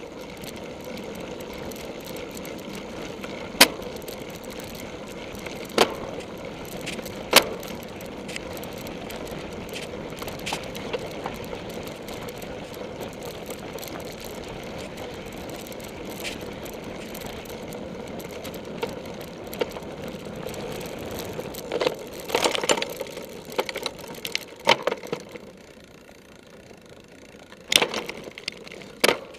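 Riding noise of a cyclocross bike on a grass course: a steady rattle and rumble with sharp knocks every few seconds over bumps, and a stretch of irregular clattering a little over twenty seconds in.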